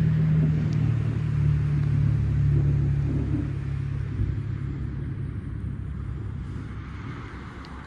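A motor vehicle's low engine hum, growing fainter over the first few seconds and giving way to a steady rushing noise.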